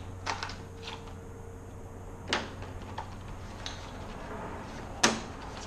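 Sharp plastic clacks and knocks as a new wiper blade and its plastic adapter pieces are handled. There are three clear clacks, the loudest near the end, over a steady low hum.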